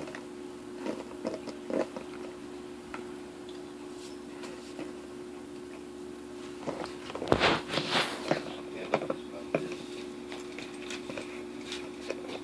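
Dog licking and chewing at a plastic bottle with peanut butter in it, the thin plastic crinkling and crackling in scattered bursts, busiest about seven to nine and a half seconds in.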